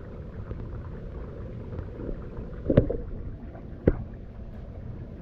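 A hand moving and sloshing in shallow pond water over a steady low rush, with two sharper splashes about three and four seconds in.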